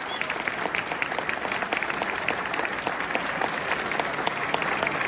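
Audience applauding steadily in a ballroom, with many hands clapping at once.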